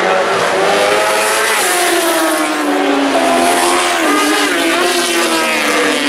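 1000cc four-stroke superbike racing motorcycles passing at speed. The engine pitch falls through the first few seconds as a bike goes by, then climbs again near the end as the bikes accelerate.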